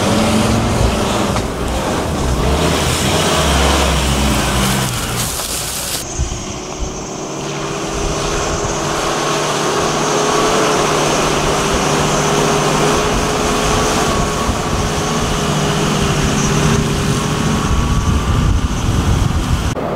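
Four-wheel-drive ute's engine running as it drives through sand and a shallow creek crossing. About six seconds in, the sound changes to a steadier, held engine note.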